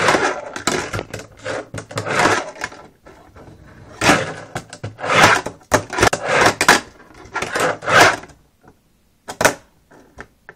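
Tech Deck fingerboard rolling on a double quarter-pipe ramp, in short scraping runs broken by clacks as the board lands and hits the ramp during trick attempts. It falls quieter near the end.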